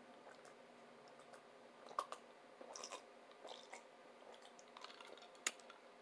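Faint chewing with small wet mouth clicks and smacks from eating a tuna sub, with a few sharper clicks about two seconds in and again near the end.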